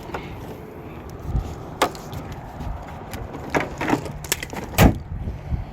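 A few short, sharp clicks and knocks, the loudest near the end, over a low rumbling background noise.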